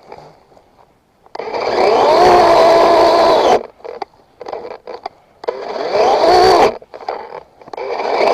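Chainsaw throttled up to full speed three times: about a second in, in the middle, and near the end. Each burst rises quickly in pitch and then holds steady, and the saw drops away between them, with small knocks in the gaps.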